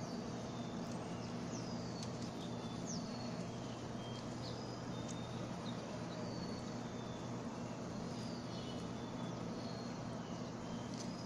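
Outdoor ambience: scattered short high bird chirps, some sliding down in pitch, about one every second, over a steady low hum.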